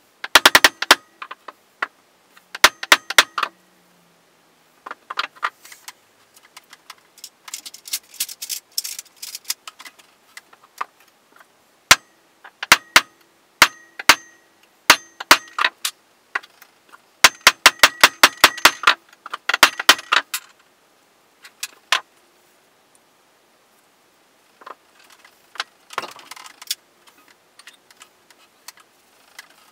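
Claw hammer tapping a steel pin into the bandsaw's upper wheel shaft hinge bracket: groups of quick, sharp metal-on-metal taps, each with a short ring, coming in bursts with pauses between and thinning out near the end.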